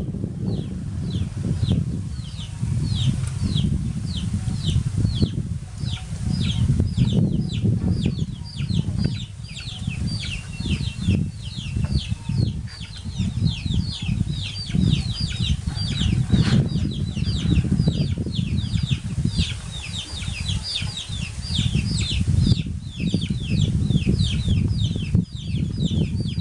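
Chicks peeping: a quick run of high, short downward-sliding peeps, three or four a second, over a loud low rumble.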